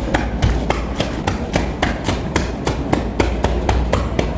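Chest physiotherapy percussion: a hand clapping rhythmically on a patient's chest wall in rapid, even claps, about three a second, to loosen phlegm lodged in the upper airways.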